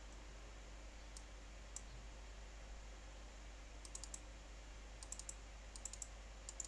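Faint, scattered computer mouse clicks as an on-screen slider is grabbed and dragged, more frequent in the second half, over a low steady hum.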